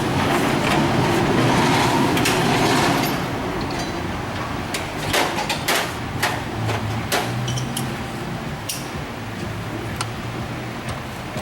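Workshop door sliding shut, a rumbling rush lasting about three seconds, followed by scattered sharp metallic clicks and knocks.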